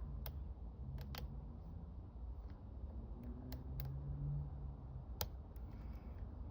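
Lock pick and tension wrench working a pin-tumbler lock: scattered small metallic clicks a second or so apart, over a low steady hum.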